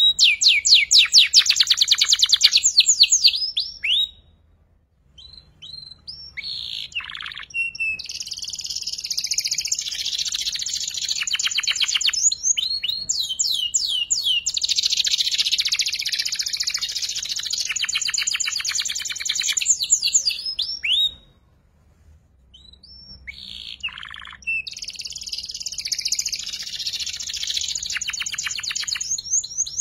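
Young canary singing its rapid, chattering trill song (ngeriwik), which it is still learning. The song comes in long phrases, with two short breaks: one about four seconds in and one about twenty-one seconds in.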